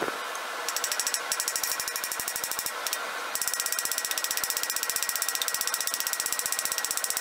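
Hand hammer rapidly tapping steel, about eight to ten light blows a second with a short pause near the middle, peening the end of a railroad spike over a steel hoe blade cut from a circular saw blade to rivet the two together.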